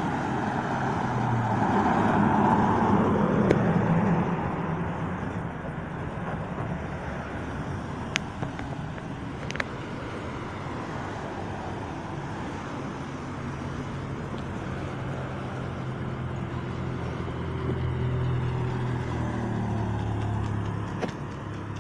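Cars passing on a street, one going by in the first few seconds and another near the end with a low engine hum that rises and fades, with two brief sharp clicks in between.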